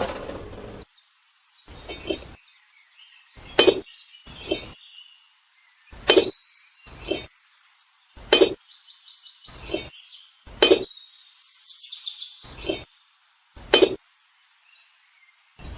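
Sharp clinks of small hard pieces being knocked together or set down, about a dozen at uneven intervals, each ringing briefly.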